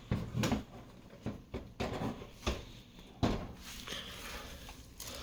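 Light knocks and clicks of headlight parts being handled and fitted back together, a handful of separate taps spread over a few seconds with the sharpest about three seconds in.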